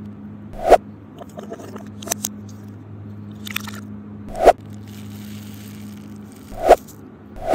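Slime packed with foam beads and candy sprinkles crunching in a granite mortar. There are four loud crunches, each building briefly then cutting off: about a second in, around four and a half seconds, and twice near the end. Small clicks and patters come between them, as beads and sprinkles drop onto the stone, over a low steady hum.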